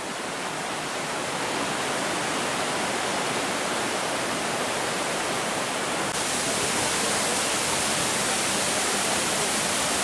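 Steady rush of water from a rocky stream and waterfall, growing slowly louder. The hiss steps up suddenly about six seconds in.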